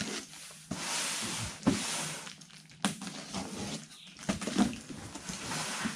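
A cardboard shipping box being opened by hand: packing tape cut and peeled off, with the cardboard scraping and rustling in long stretches and a couple of sharp clicks.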